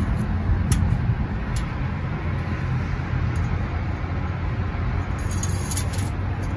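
Dodge Ram's 5.7 Hemi V8 running at a steady idle, with a few light clicks as the metal oil dipstick is slid back into its tube.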